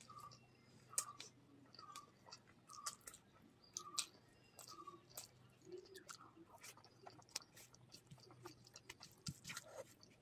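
Close-up wet chewing and lip-smacking of a mouthful of rice and fish curry eaten by hand, with many short, sharp mouth clicks. A faint, even ticking runs under it in the first half.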